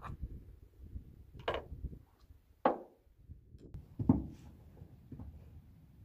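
Handling noise from a bolt-action rifle: three sharp clunks and clicks, the loudest two about two and a half and four seconds in.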